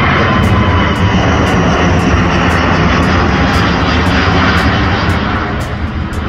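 Airbus A350 twin-engine jet airliner climbing out overhead after takeoff. Its engines make a loud, steady roar, and a faint falling whine dies away just after the start. The roar eases slightly near the end as the aircraft climbs away.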